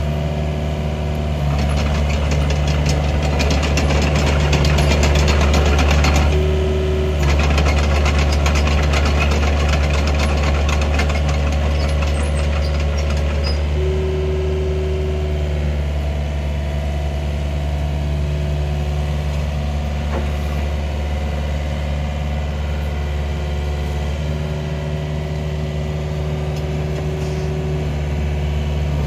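2010 IHI 55NS midi excavator's diesel engine running steadily under load, with a dense metallic clatter through the first dozen seconds as the machine is worked, and a few short hydraulic whines as the boom and controls are operated.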